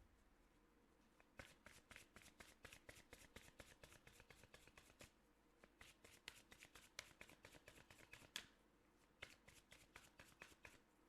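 Faint shuffling of a deck of oracle cards by hand: quick runs of light card clicks in three spells, with two short pauses between them.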